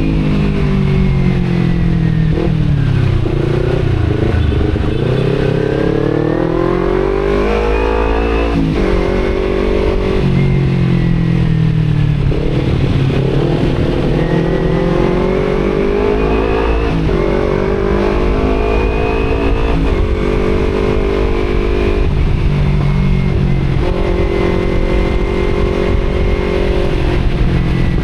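Kawasaki Z250 parallel-twin with an aftermarket Akrapovic exhaust under way, its revs climbing and falling again and again, with sudden drops at gear changes about nine, seventeen and twenty seconds in, then holding steadier near the end. Wind rumbles on the microphone.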